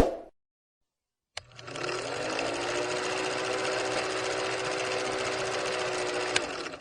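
A small electric motor spins up with a short rising whine, runs steadily with a mechanical clatter for about five seconds, then cuts off.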